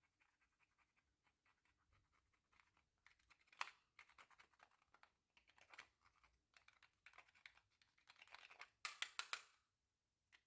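Slime being squished and worked by hand: a run of small sticky clicks and crackles, with three louder bursts of popping, the last and longest near the end.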